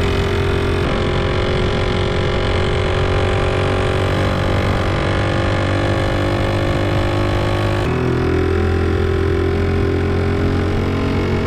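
Small trail motorbike's engine running steadily under way, with the engine note shifting about a second in and again around eight seconds in.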